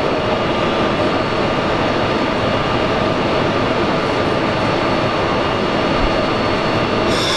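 Steady whirring hum of a standing electric passenger train's onboard equipment at the platform, with a few faint steady tones in it. A short high hiss comes near the end.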